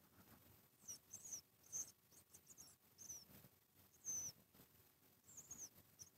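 A person imitating rodent squeaks with the mouth: about eight short, faint, high-pitched squeaks at irregular intervals.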